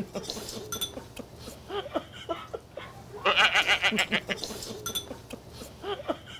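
A woman laughing in high, bleating, trembling bursts, loudest for about a second near the middle, with chopsticks and dishes clinking now and then.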